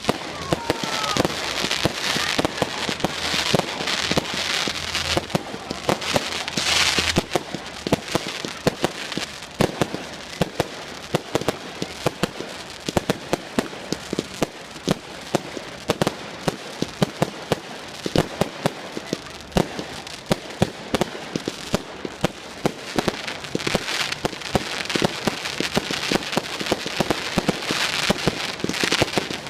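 Fireworks going off in a dense run of crackling and popping bangs, with heavier bursts of crackle in the first few seconds and again near the end. A faint rising whistle comes just after the start.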